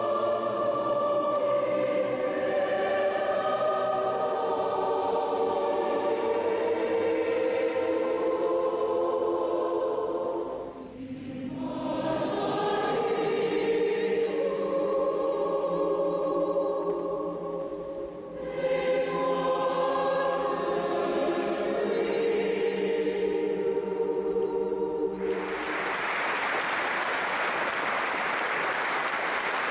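Large mixed choir singing sustained chords, pausing briefly twice between phrases, in a reverberant church. Near the end the singing stops and applause breaks out.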